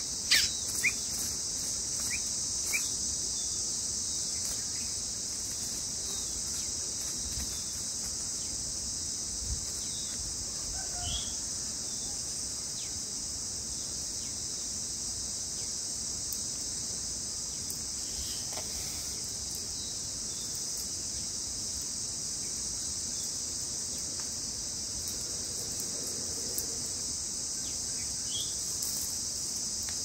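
Steady, high-pitched drone of insects. A few short bird chirps come in the first few seconds, with single chirps now and then afterwards.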